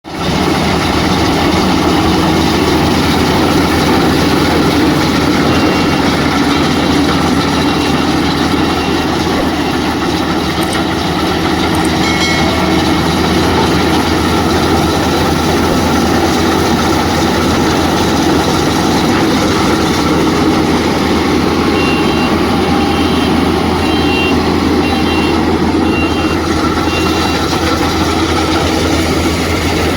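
Combine harvester running steadily at work threshing paddy, its engine and threshing machinery making a loud, constant hum and rattle. Two runs of short, evenly repeated high beeps sound over it, one early and one near the end.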